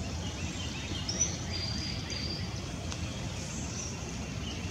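Outdoor bird calls at a distance: several scattered chirps and one high whistled note held for about a second, over a low steady background rumble.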